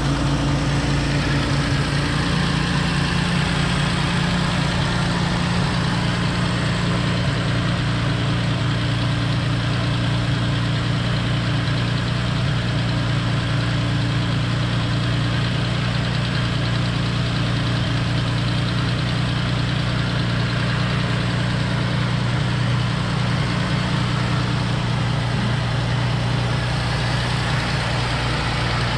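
1955 Jaguar XK140's 3.4-litre twin-cam straight-six idling steadily at a fast idle after a cold start. The revs are held up by the auxiliary starting carburettor, which stays switched on while the engine is cold.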